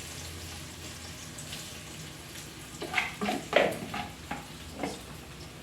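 Anchovy fritters (gimbal teri) frying in hot oil with a steady sizzle. Several sharp clatters come between about three and five seconds in.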